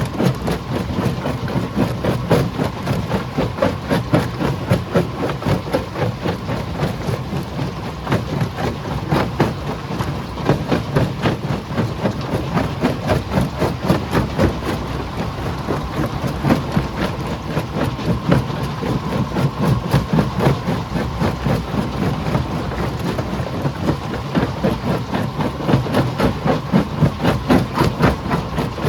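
Stone crusher running under load: a dense, continuous clatter of rock knocking against rock and steel over a heavy, steady machine drone.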